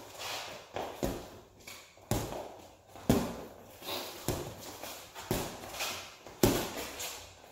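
Boxing gloves smacking against gloves and padded headgear during sparring, sharp knocks coming about once a second, each with a short echo off the garage walls.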